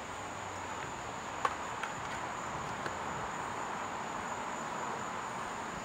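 Steady outdoor background with insects, and a few faint clicks of serving utensils against a wooden bowl as a salad is tossed.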